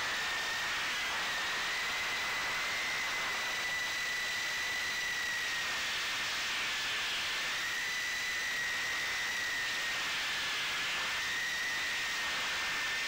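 Ducted micro FPV quadcopter's Emax 1106 brushless motors and 2-inch props in flight, heard from the onboard camera. A high-pitched whine runs over a steady hiss. Its pitch rises a little about two seconds in and dips briefly around seven and ten seconds as the throttle changes.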